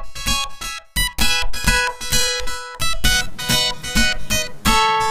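Acoustic guitar music: a quick run of plucked and strummed notes, ending near the end on a chord that rings on and fades.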